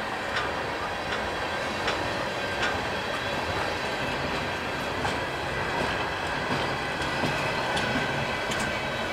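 Union Pacific train rolling past at walking pace, with sharp clicks from the wheels about once a second over a steady rumble and a faint high ringing.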